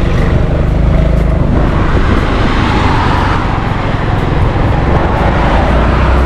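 Honda Forza 350 scooter under way: its single-cylinder engine hums steadily beneath wind and road noise on the microphone. The noise swells for about two seconds in the middle.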